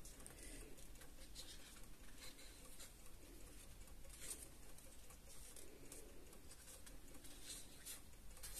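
Faint paper rustling and sliding as the pages of a large coloring book are turned by hand.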